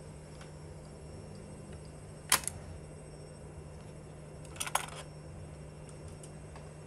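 Mechanical clicks from a Sony TC-K88 cassette deck as it is handled by hand: one sharp click about two seconds in, then a quick cluster of clicks nearly five seconds in, over a steady low hum.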